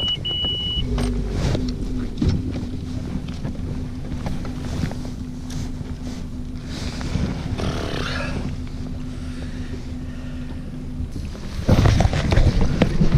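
Mercury outboard motor on an aluminium fishing boat running at a steady low hum, with wind and water noise around it. A short high electronic beep sounds right at the start, and heavy wind buffets the microphone in the last second or so.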